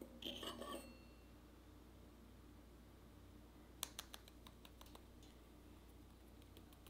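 Faint handling of a stainless moka pot filter basket full of ground coffee: a short metal clatter with a brief ring in the first second, then a quick run of light, sharp taps about four seconds in, fingers tapping the basket to settle the grounds.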